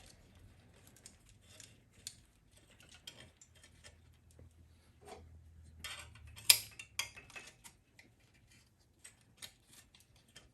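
Scattered light clicks and rustles of a wiring harness being handled and fed back through a minibike's frame, with one sharper click a little past halfway.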